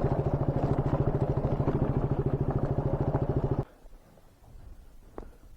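Motorcycle engine idling with an even, rapid pulse, which stops abruptly about three and a half seconds in, leaving only faint ambient sound.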